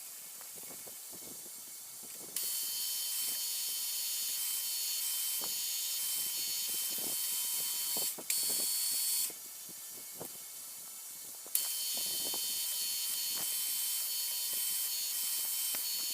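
Drilling holes in an aluminium block: a high hissing machine noise switches on and off several times, over scattered light clicks and a faint steady whine.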